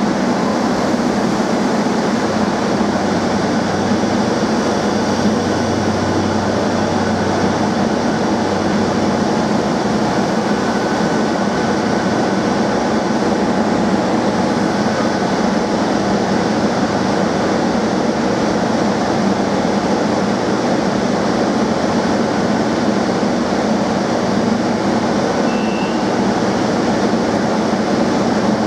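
Madrid Metro series 2000B train standing at an underground platform, its onboard equipment running with a steady hum and hiss that does not change.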